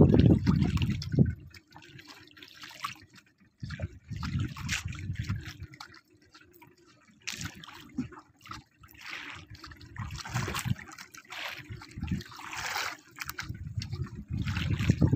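Sea water lapping and slapping against the hull of a small outrigger boat in irregular splashes, with bursts of low rumble, loudest in the first second or so.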